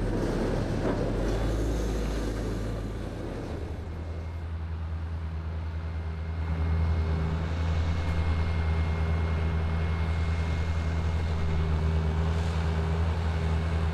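Diesel engines of farm machinery, a wheel loader and a tractor pulling a compost spreader, running steadily with a low drone. The drone changes character about three and a half seconds in.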